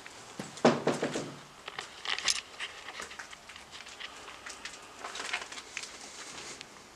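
Footsteps crunching and scuffing over debris on a derelict building's floor, with scattered clicks and crackles and a louder bump about a second in.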